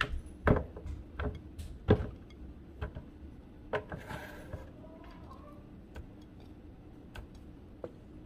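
Tomatillos dropped by hand into a plastic blender jar: a string of short knocks, roughly one every half second to second, thinning out to faint ticks after about four seconds.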